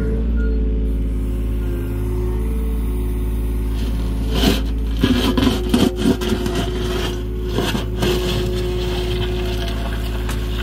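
A John Deere mini excavator's diesel engine runs steadily, and from about four seconds in its steel bucket scrapes and grinds through stony soil for a few seconds, with rocks clattering.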